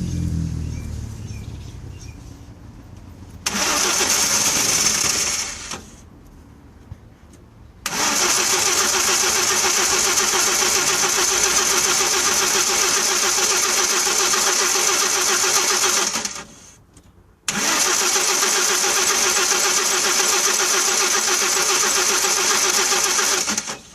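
Starter motor cranking the 1992 Audi 100's 2.3-litre five-cylinder engine in three attempts: a short one of about two seconds, a long one of about eight seconds, then one of about six seconds. Each attempt cuts off abruptly. The engine has a starting fault that was traced to its K-Jetronic fuel distributor.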